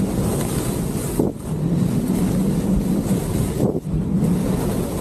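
Loud wind rush on the action camera's microphone during a fast speed-riding descent on skis under a paraglider wing, mixed with skis running over snow. The rush drops out briefly twice, about a second in and near four seconds.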